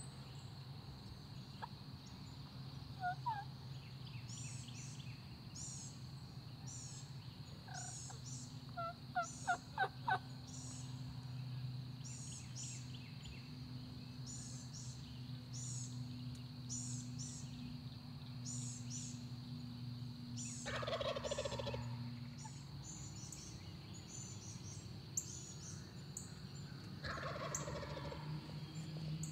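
A wild turkey gobbler gobbling twice, about twenty seconds in and again near the end, each gobble a rapid rattling call lasting about a second and a half. A few short, sharp calls come about three seconds in and again around nine to ten seconds in, and these are the loudest sounds. Small birds sing over and over, high-pitched, in the background.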